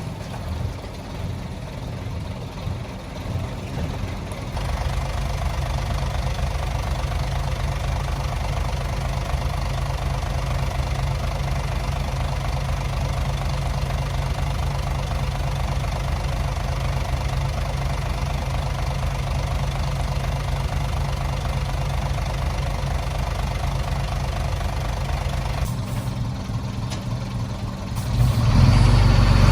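Heavy-machinery diesel engine running steadily with a knocking beat, getting louder about four and a half seconds in and again near the end.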